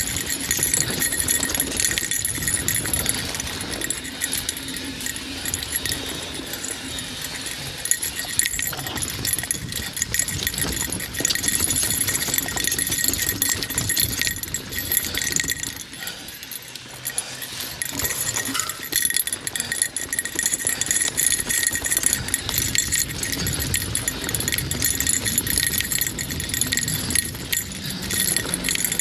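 Mountain bike rattling and clattering down a rocky trail, chain, frame and tyres knocking over the rocks in a dense, continuous stream of knocks.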